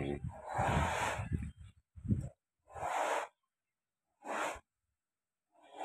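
A person's heavy, wheezy breathing: a string of short noisy breaths, roughly one a second.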